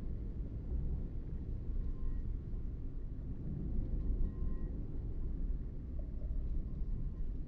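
Car driving steadily along a paved road: a continuous low rumble of tyres and engine.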